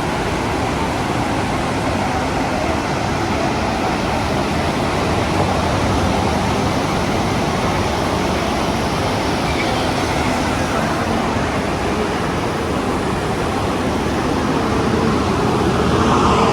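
Steady rushing noise of a waterfall and its fast-flowing water. In the last couple of seconds a faint pitched sound comes in over it.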